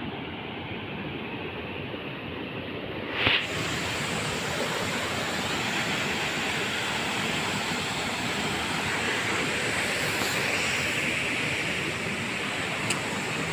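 Rushing water of a waterfall: a steady hiss of falling water, with a short loud burst of noise about three seconds in.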